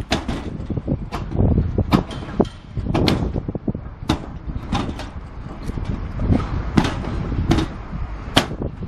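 Corrugated steel roof sheets knocking and popping under a worker's footsteps: irregular sharp metallic clicks and thuds over a low rumble.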